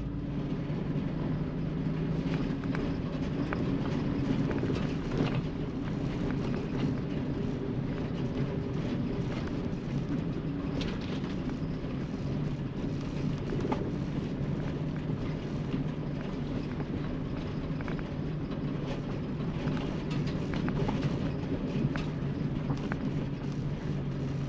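A vehicle's engine and road noise while driving: a steady low drone with an even rushing noise over it and occasional small ticks.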